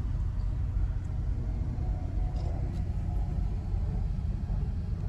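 Steady low rumble of an Acura SUV under way, its engine and road noise heard from inside the cabin.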